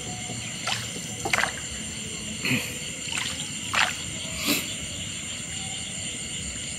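Paddle strokes splashing and sloshing in river water beside a small boat, about one every three-quarters of a second, stopping about five seconds in. Under them runs a steady high-pitched chorus of night insects.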